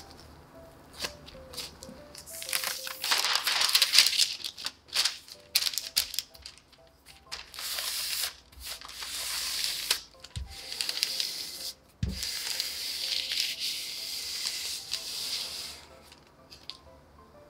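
Wooden rolling pin rolled over a sheet of parchment paper laid on cookie dough, the paper rustling and crinkling in several long strokes, with two low thumps a little past the middle. Soft background music with a simple melody plays underneath.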